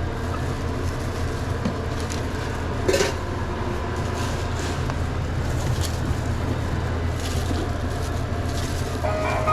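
Steady low hum of restaurant kitchen equipment, with scattered light clicks and knocks of sandwich-counter work, one sharper knock about three seconds in, and an electronic beep starting near the end.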